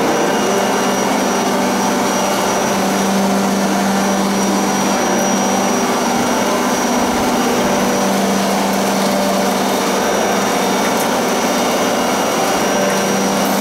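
MK-65 screw oil press running steadily while pressing nigella (black cumin) seeds: an even, loud mechanical hum with a thin steady high whine above it.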